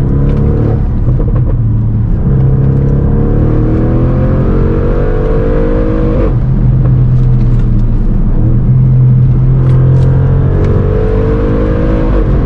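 Audi RS6's twin-turbo V8 with its centre resonator replaced by straight pipes, heard from inside the cabin while accelerating. The engine note climbs steadily, drops at an upshift about six seconds in, then climbs again over a constant hum of tyre road noise.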